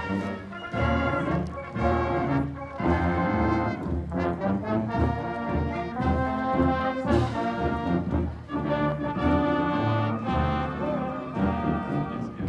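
High school marching band playing as it marches, the brass (trombones and trumpets) carrying the tune in sustained notes over a low bass line.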